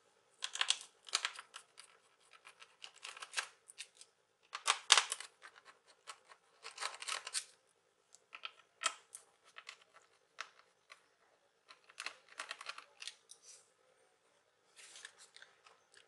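Small screwdriver turning out the screws of an Acer TravelMate P653 laptop's bottom compartment door. It makes short spells of scratchy rasping, several times, with pauses in between; the loudest comes about five seconds in.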